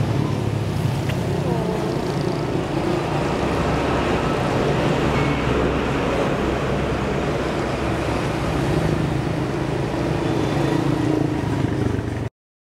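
Steady street traffic noise, a low rumble of passing road vehicles, which cuts off abruptly near the end.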